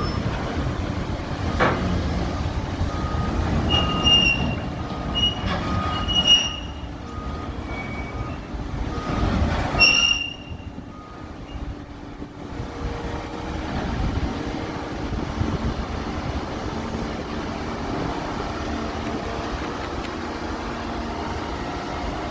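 Heavy construction machinery at work: a diesel engine running, with a reversing alarm beeping about once a second and several high metallic squeals in the first half. The squeals and beeps stop after about ten seconds, leaving a steady engine drone.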